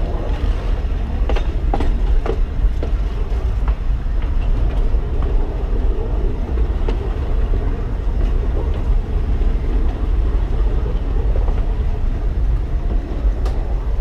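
Alishan Forest Railway narrow-gauge train, hauled by a DL-41 diesel locomotive, running along the track: a steady low rumble, with a few sharp clicks in the first couple of seconds and another near the end.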